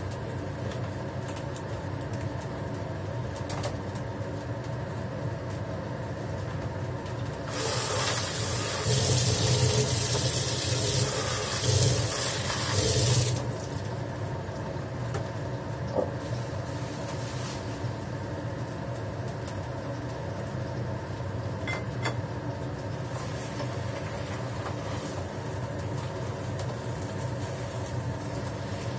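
A kitchen tap runs for about six seconds, a rushing splash near the middle, over a steady mechanical hum; a few light clicks come later.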